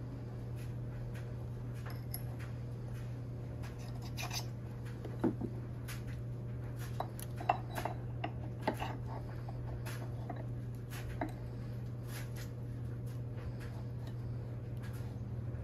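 Light metal clinks and taps as a steel bushing and shaft key are handled and slid onto an engine crankshaft, a handful of sharp ticks scattered through, the strongest a few seconds into the middle. A steady low hum runs underneath.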